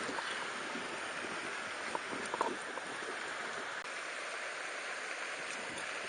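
Clear mountain stream running over stones in a steady rushing hiss, with a few light clicks a little after two seconds in.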